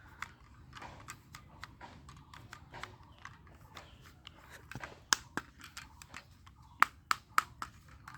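Irregular plastic clicks and clacks from toy blowback guns being handled and worked, with a few sharper snaps past the middle and near the end.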